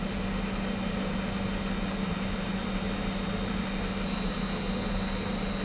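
Steady mechanical hum of room machinery, a low drone with a faint high whine over it, unchanging throughout.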